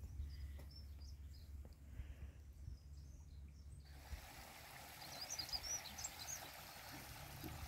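Faint outdoor ambience: a low rumble, then from about four seconds in a wider hiss with a few short, high bird chirps.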